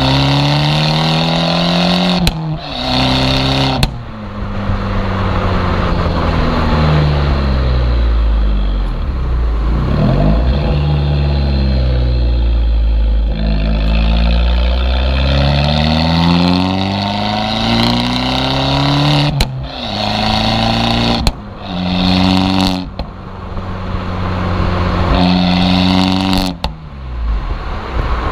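Abarth 595's turbocharged four-cylinder heard through its Monza exhaust with a 200-cell sports cat, the exhaust valve open: the engine revs rise with each pull through the gears and break briefly at each upshift. Around the middle the revs fall away as the car slows, then build again through more quick shifts.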